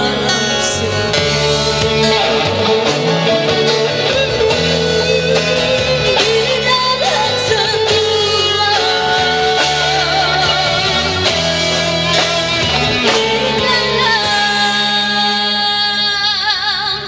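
A young girl singing lead into a microphone over a live rock band of electric guitar, bass, acoustic guitar and drum kit. Near the end she holds a long note with vibrato.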